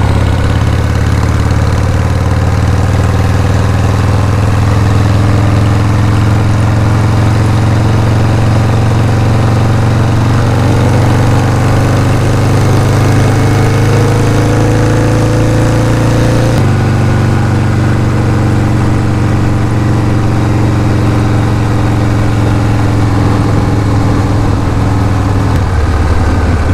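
Cruiser motorcycle engine running under way, a steady throb under rushing wind. Its pitch climbs slowly and then drops suddenly about two-thirds through, as on an upshift.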